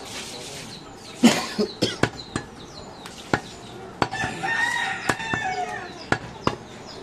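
Cleaver chopping goat meat on a wooden butcher's block: a series of sharp, irregular knocks, the loudest about a second in. A rooster crows once in the background for about a second and a half, starting about four seconds in.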